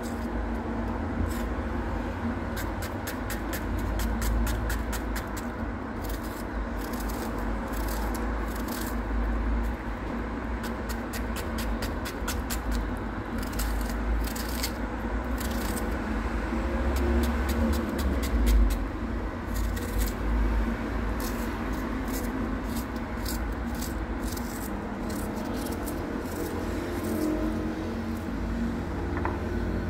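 Small kitchen knife cutting tomato and onion held in the hand, with a run of light, irregular cutting clicks. A steady low rumble and hum run underneath.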